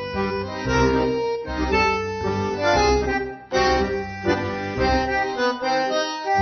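Tango dance music played over the hall's sound system, with bandoneón chords held over a pulsing bass line. It breaks off for a moment about halfway through, then comes back in sharply.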